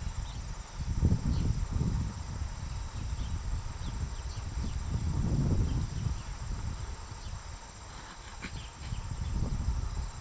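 Wind buffeting the microphone in uneven low gusts, loudest about a second in and again around the middle, over a steady high drone of insects with a few faint chirps.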